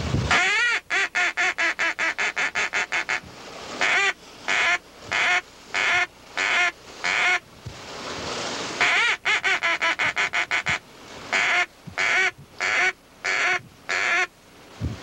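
Hand-blown duck call: a long opening note, then a fast run of about six quacks a second, then slower quacks about two a second. The whole sequence is played twice.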